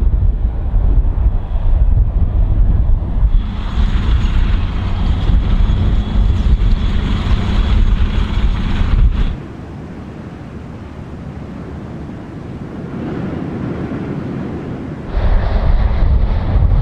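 Wind buffeting the microphone over a heavy low rumble. It changes abruptly a few times: a hiss comes in about three seconds in, the level drops about nine seconds in, and it comes back loud near the end.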